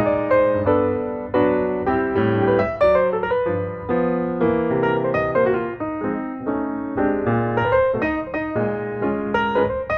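Background piano music, a continuous run of notes played at an even pace.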